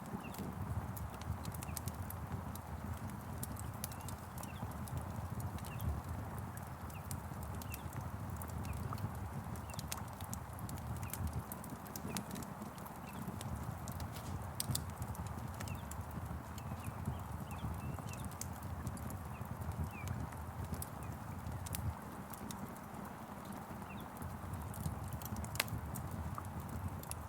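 Wood fire crackling with frequent sharp pops over a low steady rumble, with a soft hiss of rain and short faint bird chirps.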